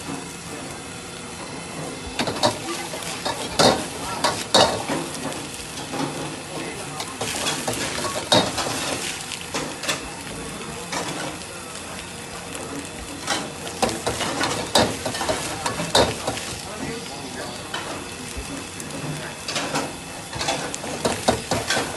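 Egg fried rice sizzling in a wok over a high flame while a metal ladle stirs and scrapes it, with sharp knocks of the ladle against the wok every second or few.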